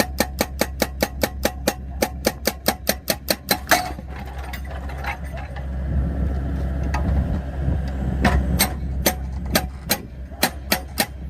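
Excavator-mounted hydraulic breaker hammering rapidly into firewood logs to split them, about seven blows a second over the excavator's steady diesel engine hum. The hammering stops just under four seconds in, leaving the engine running, then resumes near the end in shorter, more uneven runs of blows.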